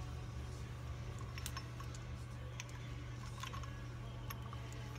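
Light metallic clicks and clinks of steel gearbox parts being handled: a Norton Commando kickstart gear being worked onto its shaft. A handful of scattered clicks, over a steady low hum.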